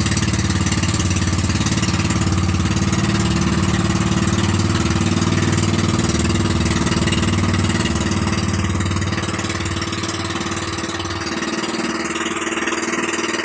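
Outrigger fishing boat's (bangka) engine running steadily while underway, easing a little about two-thirds of the way through.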